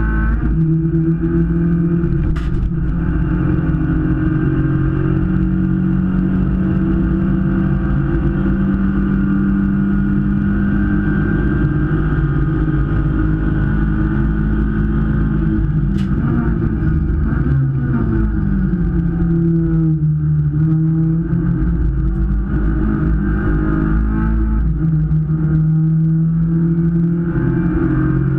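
Race car's engine heard from inside its stripped cabin, running hard at high revs; about two thirds through the engine note drops away and wavers, as with braking and downshifting, then climbs again as the car accelerates.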